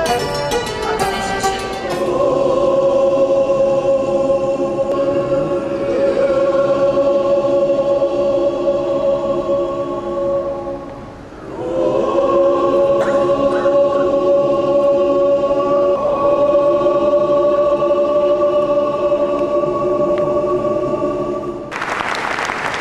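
A woman's voice singing two long held notes, unaccompanied once the instrumental music ends about two seconds in, with a short break and a pitch glide back up about eleven seconds in. Applause breaks out near the end.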